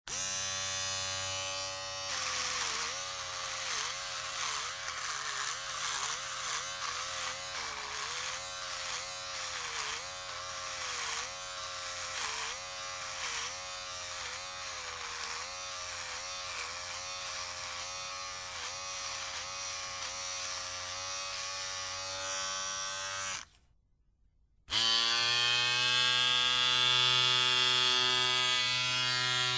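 Electric shaver buzzing, its pitch wavering and dipping over and over. It switches off about 23 seconds in, and after a second of silence starts again and runs steadily at a higher pitch.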